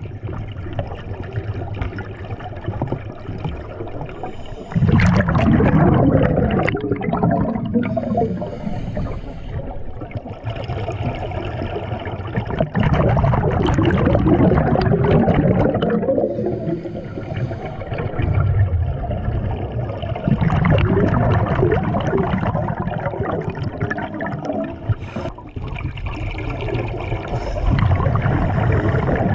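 Underwater, a scuba diver's exhaled bubbles gurgle out of the regulator in loud swells every seven seconds or so, over a steady watery rumble.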